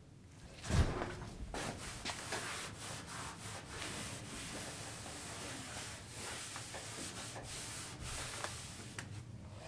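A cloth rag rubbing in repeated wiping strokes over the bare sheet-metal body of a 1969 VW Beetle, cleaning off dirt before painting. There is a single knock about a second in, and the rubbing stops near the end.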